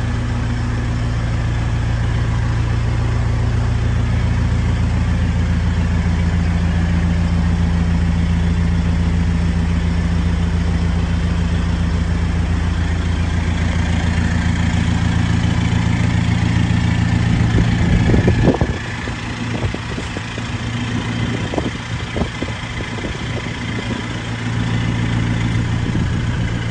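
A vehicle engine idling steadily with a low hum. About eighteen seconds in, a brief louder moment ends in a thump, and the engine sound is then quieter, with a few scattered knocks.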